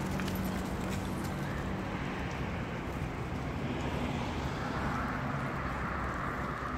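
Steady road-traffic noise with a low engine hum, swelling in the second half as a vehicle passes.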